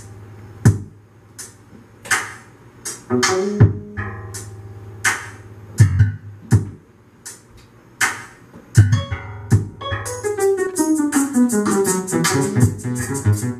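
Live electronic music from a Roland MC-808 groovebox and a keyboard synthesizer: sparse, irregular sharp hits over a steady low hum, then about ten seconds in a fast run of notes stepping down in pitch.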